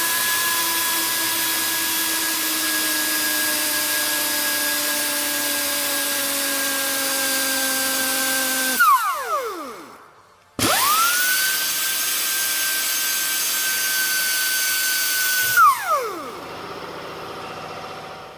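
Pneumatic Dynafile belt file running with a high, steady whine and air hiss while grinding down the sides of a plastic telephone-cable plug. It spins down about nine seconds in, starts again a second and a half later, and spins down again near the end.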